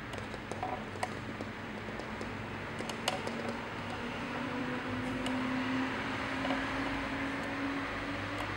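A steady hum with a faint tone that slowly rises in pitch, and a few light clicks in the first three seconds.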